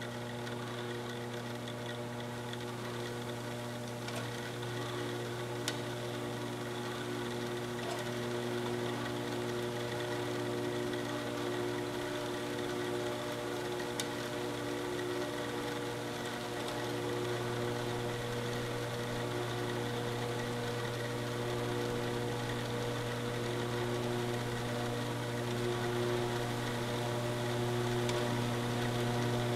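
Electric motor of a metal-cutting saw running with a steady hum made of several held tones, with a couple of faint ticks, getting slightly louder near the end.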